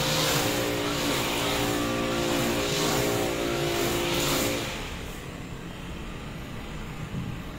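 A motor engine running with a steady hum, which stops about five seconds in, leaving a faint hiss.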